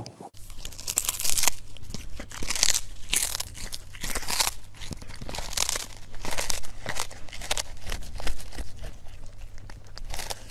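A cat chewing a small whole fish: repeated crunching bites, starting about a third of a second in.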